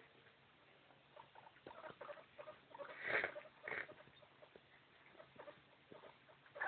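A small dog and a guinea pig at close quarters: faint pattering and scuffling, with a brief louder sound about three seconds in and another shortly after.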